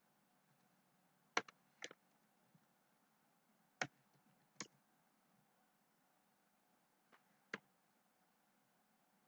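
Half a dozen sharp computer mouse clicks at irregular intervals, some in close pairs, over a near-silent room.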